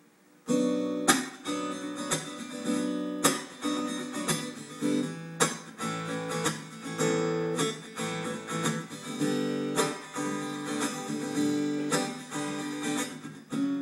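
Acoustic guitar strumming chords in an instrumental intro, starting about half a second in with a steady rhythm of strokes.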